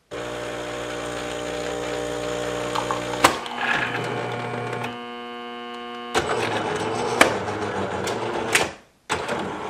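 Jura Capresso Impressa F9 super-automatic espresso machine running as it pulls a strong espresso shot. Its pump hums steadily, shifts to a different pitch about five seconds in, and gives several sharp clicks, with a brief dropout near the end.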